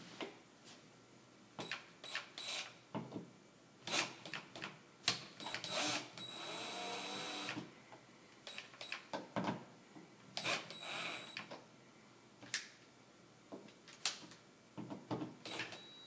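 Black & Decker cordless drill driving the mounting screws of a light switch into the wall box, with one steady run of about a second and a half midway. Sharp clicks and knocks of the screws, switch and drill between the runs.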